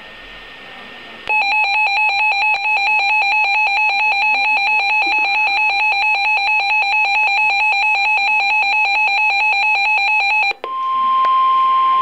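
Reecom SAME weather alert radio sounding its built-in warning alarm: a loud, rapid two-tone beeping at about four beeps a second for roughly nine seconds, set off as it decodes a tornado warning. It cuts off near the end and the steady 1050 Hz NOAA Weather Radio warning tone begins.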